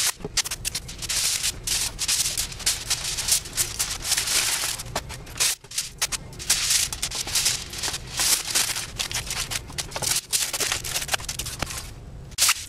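Aluminium foil and masking tape being crinkled, torn and rubbed down by hand, sped up about ten times so the handling runs together into a dense, irregular crackle. It briefly drops out about halfway.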